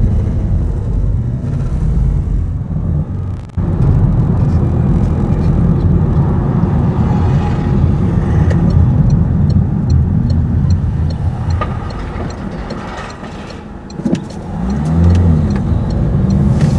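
Car engine and road noise from inside a moving car, a steady low drone. A light regular ticking at about two ticks a second runs for a few seconds in the middle. Near the end the engine note rises and falls several times as the car accelerates.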